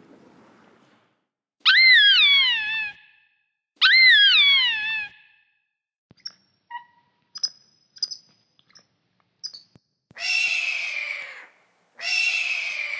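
A string of different animal calls. First come two loud calls that waver and fall in pitch, then a few short, scattered high chirps, then two harsh screeches that fall in pitch near the end.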